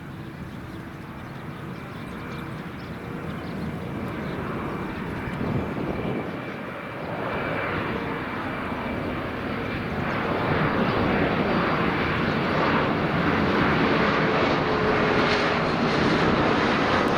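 Jet airliner's engines growing steadily louder as the plane draws near, a broad rumble with steady whining tones over it.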